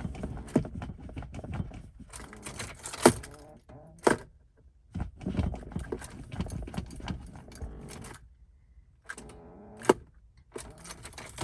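Ignition key and keyring clicking and jangling as the key is worked in a 1999 Lincoln Town Car that won't start; irregular clicks and knocks, and the engine does not crank or run.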